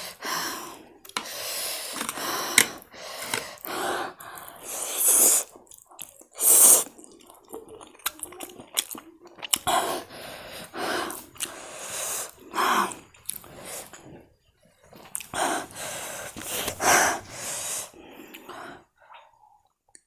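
A person eating fiery Korean instant noodles: chewing in irregular bursts, with sniffs and heavy breathing from the chilli heat.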